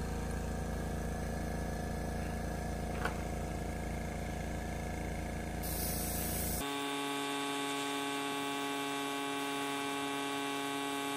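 Steady machine hum from the airbrush setup, with a short hiss of airbrush spray about six seconds in. Right after the hiss the hum changes abruptly to a steadier, more even drone.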